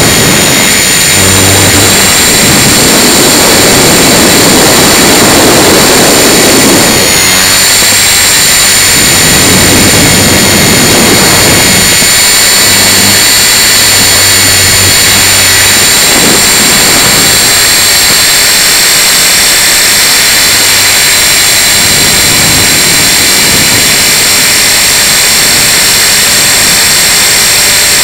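Tarot 450 Pro electric RC helicopter in flight: its brushless motor and rotor make a steady high whine over a loud rushing noise that swells and fades every few seconds, with gusty wind noise mixed in.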